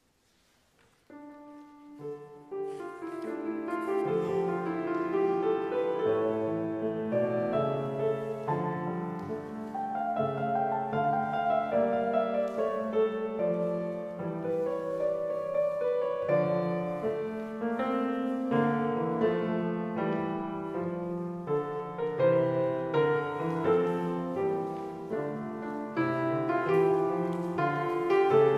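Solo piano music on a Yamaha grand piano: a flowing piece that begins softly about a second in and soon fills out into full chords and melody.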